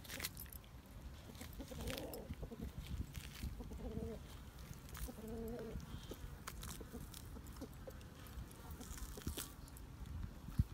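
Dog chewing and tearing at raw meat on a bone, with scattered sharp clicks and crunches. A few short pitched calls sound about two, four and five seconds in.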